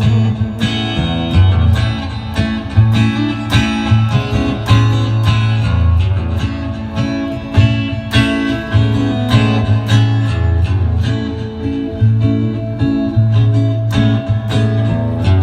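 Live guitar music: a plucked and strummed guitar over a steady bass line, in an even rhythm.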